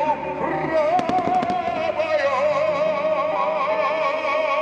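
Fireworks show soundtrack playing over loudspeakers: a held melody with a wavering vibrato over soft accompaniment. A quick cluster of firework bangs sounds about a second in.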